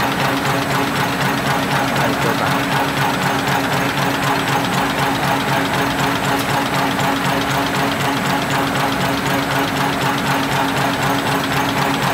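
Automatic four-lane napkin tissue folding machine running steadily: a dense, fast mechanical clatter over a steady low hum.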